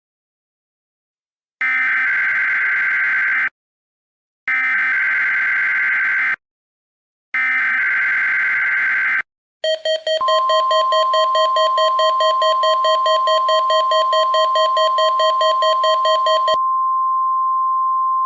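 Emergency Alert System test signal of the kind NOAA Weather Radio sends: three identical bursts of screechy digital SAME header data, then the steady 1050 Hz weather-radio alert tone. A harsh buzzing tone pulsing about four times a second sounds over the alert tone at first and cuts off near the end, leaving the pure tone on its own.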